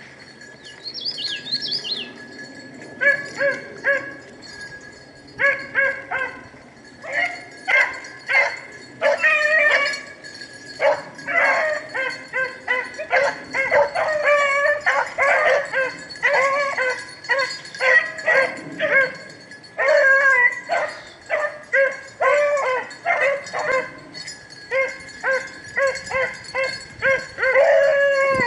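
A pack of rabbit hounds baying in chorus on a rabbit's trail. The cries come singly at first, then overlap thickly from a few seconds in as more dogs join.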